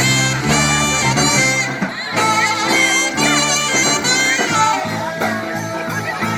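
Live band playing an instrumental passage, a lead instrument holding long sustained notes over the band.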